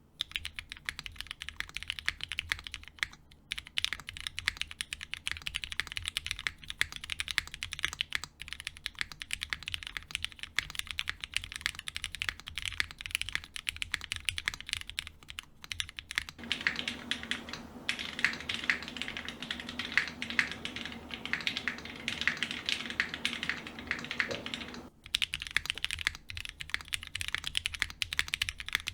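Continuous fast typing on a custom 60% mechanical keyboard with linear Cherry MX Black Hyperglide switches, lubed and filmed, under GMK keycaps in a Kalam Unikorn HK case. From about 16 s to 25 s it is picked up by the camera's built-in microphone instead of the condenser mic, with a steady low hum beneath the key strokes.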